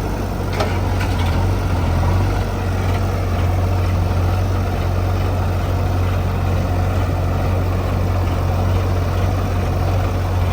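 Heavy diesel engine running steadily at a low, even pitch, with a couple of light knocks about half a second in.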